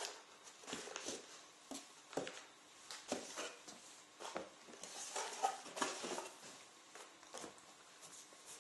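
Faint, irregular light taps, clicks and rustles of small items being handled, with a brief busier patch of rustling about five seconds in.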